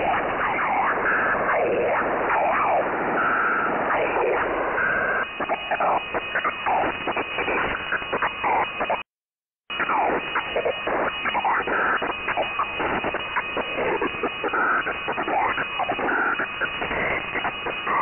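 Shortwave lower-sideband transmission from a Brazilian peskie radio sending waterfall images: swirling, sweeping tones over static, heard through an online SDR receiver. The audio cuts out completely for under a second near the middle.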